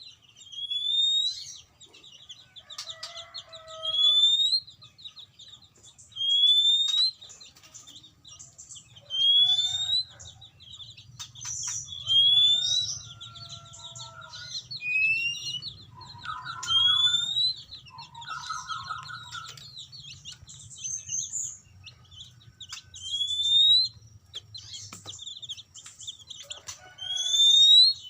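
Oriental magpie-robin (kacer) song used as a lure call. A bright rising whistle repeats about every three seconds, with shorter chattering and lower warbled phrases between.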